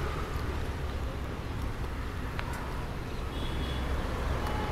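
Steady low rumble of street traffic, with a faint click about two and a half seconds in.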